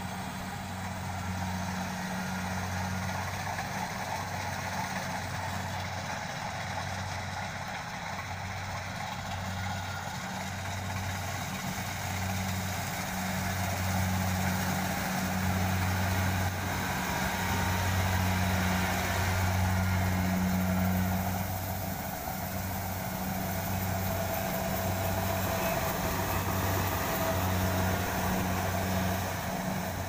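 Kubota rice combine harvester running in the field: its engine and threshing machinery give a steady low drone that wavers a little in strength.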